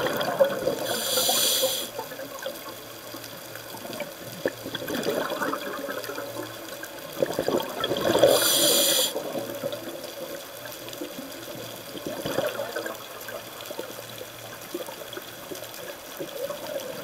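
Scuba diver's regulator breathing heard underwater: bursts of exhaled bubbles, each followed by a short hiss of the regulator, twice about seven seconds apart, with a smaller burst of bubbles about twelve seconds in.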